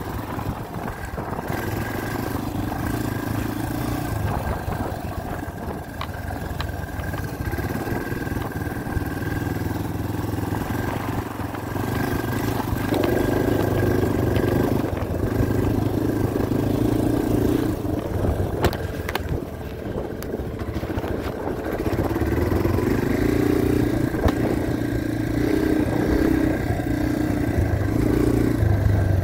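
Yamaha dirt bike engine running under the rider, its note stepping up and down as the throttle opens and eases, louder in the second half, with a few sharp knocks.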